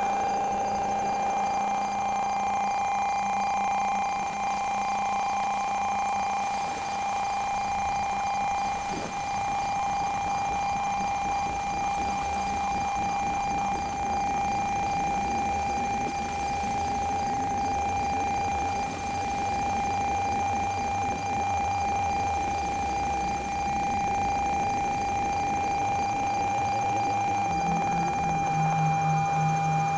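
Battery-powered electronic synthesizer holding a drone: a steady high tone with a fainter, higher tone above it. A low tone fades out in the first few seconds, and a new, lower tone comes in near the end.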